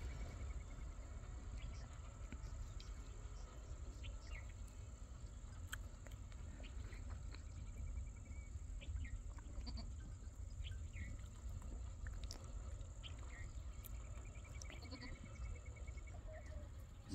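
Faint outdoor animal calls: scattered short chirps and trills, with wavering bleat-like calls near the end, over a steady high drone and a constant low rumble.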